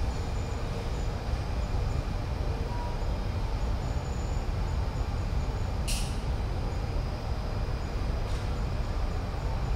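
Distant city street traffic, a steady low rumble, with one short hiss about six seconds in and a fainter one near the end.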